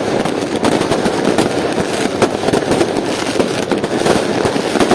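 Many fireworks and firecrackers going off at once: a dense, continuous crackle of overlapping bangs with no pause.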